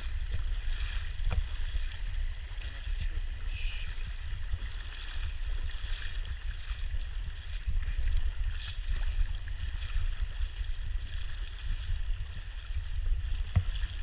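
Shallow river water rushing over a cobble bed under a low, fluctuating rumble of wind on the camera microphone, with a few short splashes.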